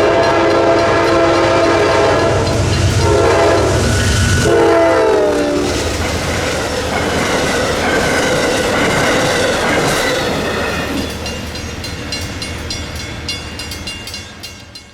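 A diesel-hauled passenger train passes close by, its locomotive horn sounding a chord of several tones over a heavy engine rumble. The horn's pitch drops about four and a half seconds in as the locomotive goes by, and the horn stops a second later. The cars then roll past with a steady rumble and clacking wheels that fades toward the end.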